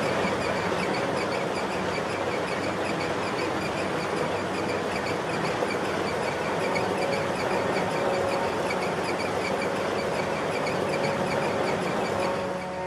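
Ore-grinding ball mill running: a loud, steady, dense grinding noise with a fast, even clatter repeating in the upper register.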